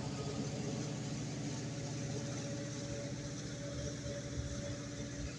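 CSX freight train rolling past: a steady low rumble of the cars on the rails, with the drone of a diesel locomotive's engine under it.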